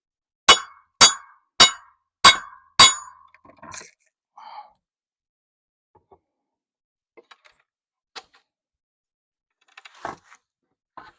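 Five quick hammer blows about half a second apart, each ringing like struck metal, as a board is knocked off a corral post; a few fainter knocks and clatters follow.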